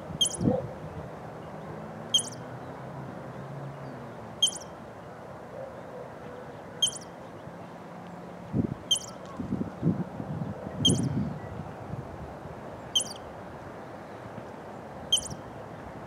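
California ground squirrel giving a repeated alarm call: eight short, high, bird-like chirps, evenly spaced about two seconds apart. A few low rumbles come in between the chirps about two thirds of the way through.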